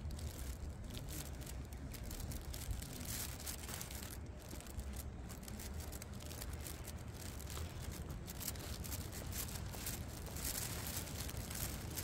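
Footsteps crunching and rustling through dry needle litter and undergrowth on a forest floor, irregular crackles over a steady low rumble on the microphone.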